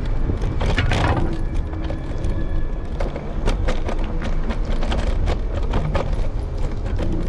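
Ride noise picked up by a camera on an electric scooter's handlebars: a steady low rumble of wind and road, with frequent sharp clattering knocks as the scooter runs over rough pavement.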